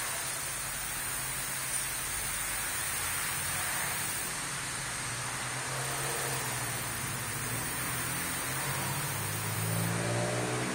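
Steady background hiss with a low hum that changes pitch and grows slightly louder near the end.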